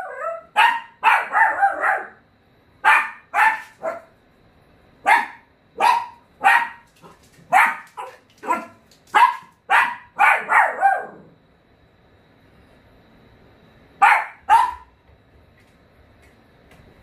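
Dachshund barking sharply in quick clusters, about twenty barks, then two more after a short pause. It is alarm barking at someone outside the house: the dog guarding its home.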